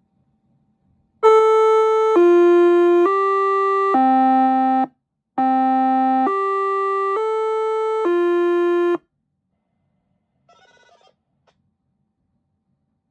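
Electronic chime alert tone from a Federal Signal UltraVoice+ siren controller: two four-note phrases of steady, organ-like notes with a short break between them.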